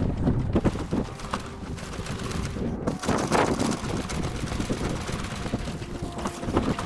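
Footsteps and grass swishing as a person walks through long grass carrying a hang glider, with uneven scuffs and wind buffeting the microphone.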